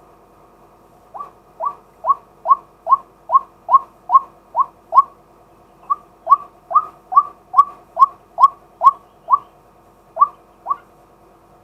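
Male white-breasted waterhen calling: a run of short notes, each sliding downward, at about two to three a second. The notes come in two runs with a brief pause between them, then two more near the end.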